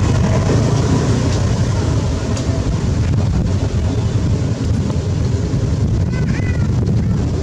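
Steady low rumble of wind buffeting the microphone, with a couple of short high chirps about six seconds in.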